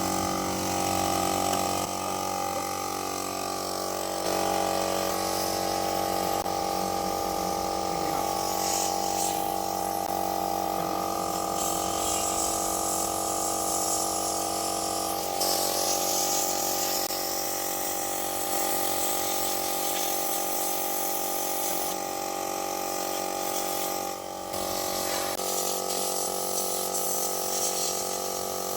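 Small electric tool motor used for plastic welding a car bumper, running with a steady whine over a hiss; its pitch shifts a few times and it dips briefly near the end.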